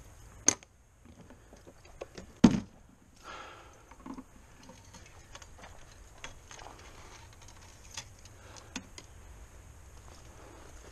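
Handling noise at a pickup truck's bed-mounted rod holder: two sharp knocks, the second the louder, then scattered light clicks and rattles as a fishing rod is handled in the holder.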